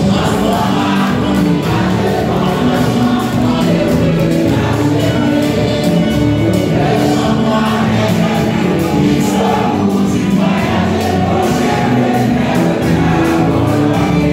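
A small gospel choir singing a hymn with instrumental accompaniment and a steady beat.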